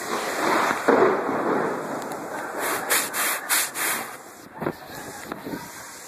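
Hand-held camera being handled, its microphone rubbed and brushed: a loud rough rustle at first, then several quick scraping strokes in the middle and a few knocks near the end, over a steady hiss of heavy rain.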